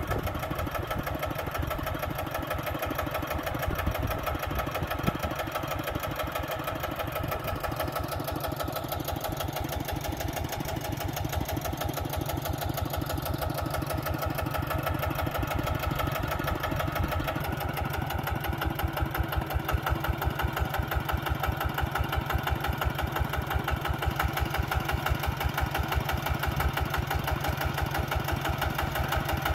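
Kubota engine running steadily with an even, rapid beat of firing strokes, getting somewhat louder about eighteen seconds in.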